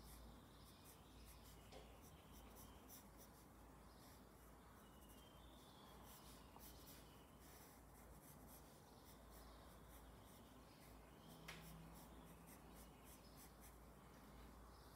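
Faint scratching of a graphite pencil drawing on paper in many short, quick strokes, with one small tap about three-quarters of the way through.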